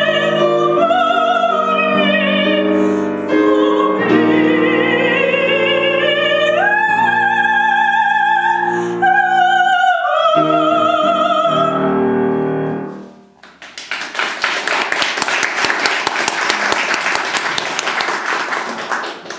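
A woman singing an operatic classical song with grand piano accompaniment, her voice carrying a wide vibrato, ending on a long held note about twelve seconds in. Then an audience applauds for about six seconds.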